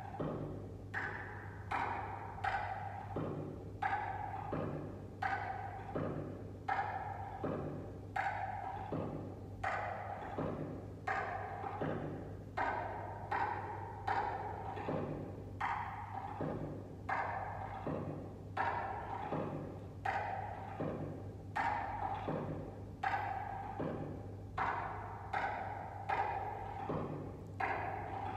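A steady percussion beat of hollow, woody drum strokes, about one strong stroke a second with lighter strokes between, keeping time for the hula steps.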